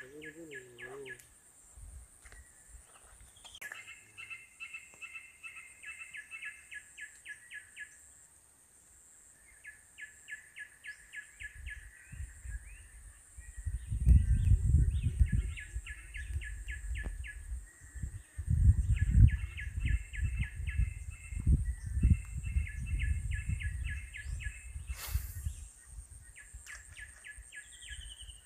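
A bird chirping in rapid repeated trains, about eight chirps a second, each run lasting a few seconds. A louder low rumble comes and goes through the middle stretch.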